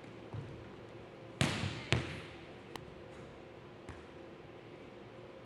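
Volleyball being hit and bouncing on a gym's hardwood floor: a few sharp smacks that echo in the hall. The two loudest come about half a second apart, just before the middle.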